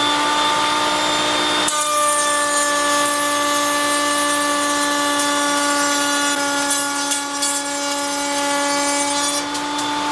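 Router in a router table running at full speed with a straight cutter bit, a steady whine. About two seconds in, the bit starts cutting a rabbet along a maple board, adding a loud cutting hiss that stops shortly before the end, when the router runs free again.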